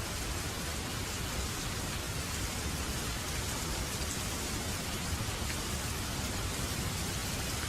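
Steady rain falling, an even hiss with no breaks, from a thunderstorm recording.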